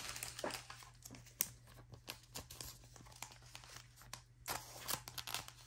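Faint crinkling and rustling of trading cards and their plastic packaging being handled, with scattered small clicks.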